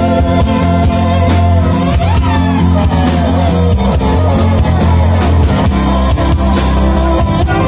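A rock band playing live: electric guitars over a drum kit, with a heavy low end and a sliding guitar line about two seconds in.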